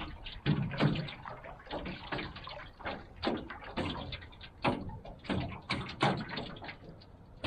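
Water lapping and slapping against the side of a small fishing boat in short, irregular splashes.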